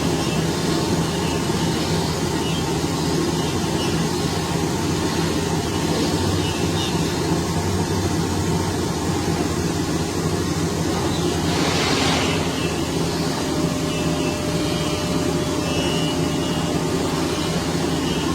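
Steady mechanical running noise with a low hum, and a brief hissing swell about twelve seconds in.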